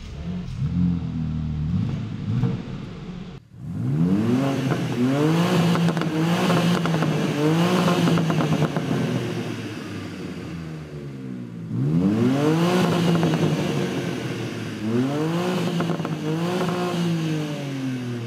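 BMW M2 G87's inline six-cylinder engine and exhaust, running steadily at first, then revved in a series of quick blips that climb and fall back, several times over.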